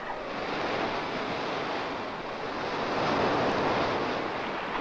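Sea surf breaking and washing in over rocks, a steady rush that swells a little about three seconds in.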